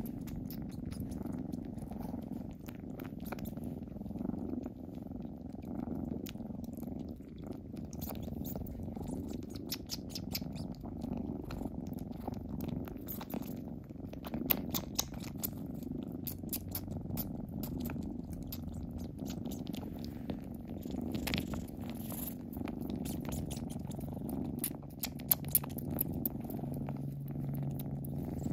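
Kittens purring steadily, a soft pulsing rumble, with many small wet clicks as they mouth a person's hand. A deeper, steadier purr comes in near the end.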